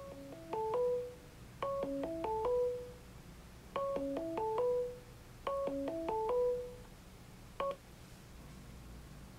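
Short electronic jingle of quick rising beeps, played four times in a row, followed by one short blip. This is the built-in speaker of a PLAYBULB smart LED bulb being tested.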